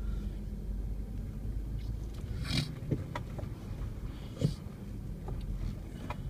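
Inside a vehicle's cabin: a steady low engine and road rumble while crawling over a rough dirt trail, broken by a few short knocks and rattles from the bumps, the loudest about four and a half seconds in.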